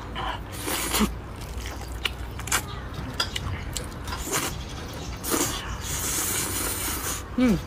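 A person slurping spicy instant noodles and chewing: long hissing slurps of noodles drawn into the mouth, broken by short wet clicks. A brief falling vocal sound comes near the end.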